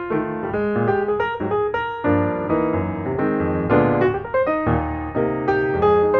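Background piano music: a gentle melody over chords, notes struck in a steady flow.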